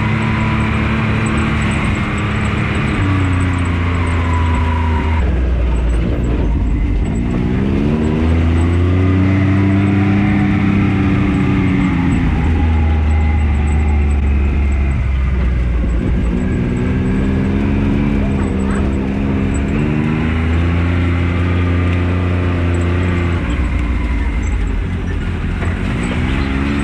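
Can-Am Maverick X3 RC side-by-side's engine running under way, its revs rising and falling again and again as the throttle is worked.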